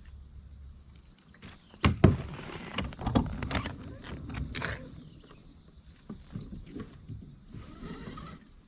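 Handling noises in a plastic fishing kayak while a freshly caught bass is unhooked: a sharp knock about two seconds in, then irregular clicks, bumps and rustles.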